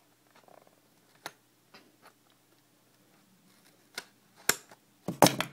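Sparse clicks and taps from a taped cardboard trading-card starter deck box being handled and worked open, ending in a brief, louder cluster of rustling and clicking near the end.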